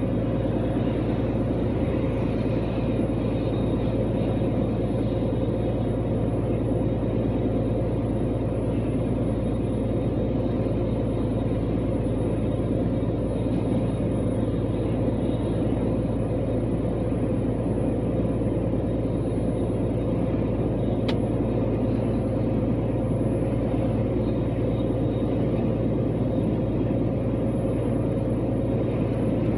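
Camper van driving at a steady speed: a constant rumble of engine and road noise. A single faint tick comes about twenty seconds in.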